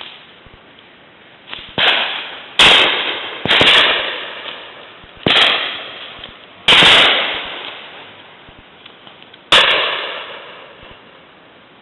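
Shotgun shots at driven game birds: six or seven bangs over about eight seconds, a few fainter and most loud and close from the over-and-under shotgun. Each shot echoes and dies away over about a second.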